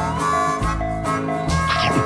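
Background music with a steady beat of bass notes about every half second under held melody notes. A short wavering sound cuts in near the end.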